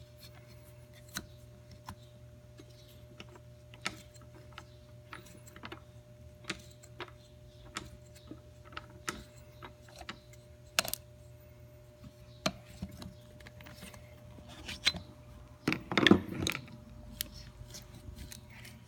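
Irregular small clicks and knocks as a ribbed rubber drive belt is worked and turned onto the pulleys of an air compressor's aluminium motor frame. A louder clatter of knocks comes about sixteen seconds in.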